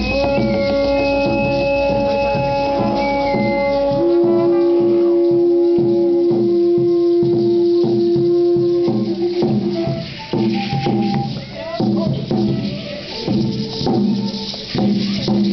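Conch shell trumpets blown in long, steady held notes: a higher note for about four seconds, then a lower one held for about five more. Throughout there is a rhythmic shaking of rattles, with a steady beat continuing after the horns stop.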